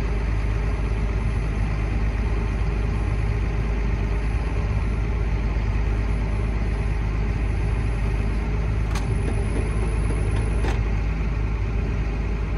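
John Deere 7820 tractor's six-cylinder diesel engine running steadily under way, heard from inside the cab as a constant low drone. Two faint clicks come near the end.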